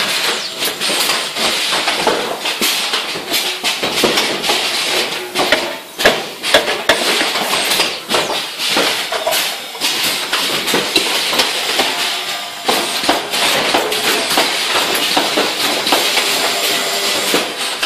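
Wheel-weight casting machine running with a continuous rapid metallic clatter, with sharper knocks here and there.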